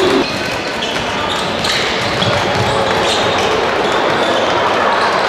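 Live basketball game sound: steady crowd noise in an indoor arena, with short high squeaks from sneakers on the hardwood court and a ball bouncing.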